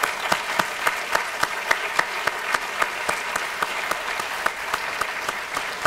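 Audience applauding steadily, with one nearby clapper's sharp claps standing out about three to four times a second.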